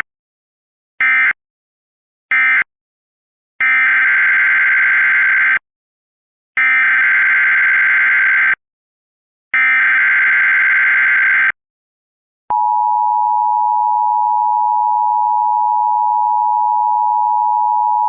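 Emergency Alert System signalling. Three short screeching data bursts about a second apart mark the end of one alert. Then come three longer data bursts of about two seconds each, the coded header of the next alert. About twelve seconds in, the steady two-tone EAS attention signal starts and holds.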